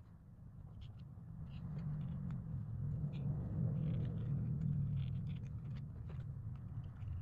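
A low rumble that swells to its loudest around the middle and then eases off, with light clicks and rustles of card 3D-puzzle pieces being handled and fitted together.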